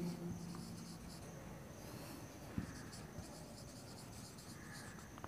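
Faint squeak and scratch of a marker pen writing on a whiteboard, with one soft knock about halfway through.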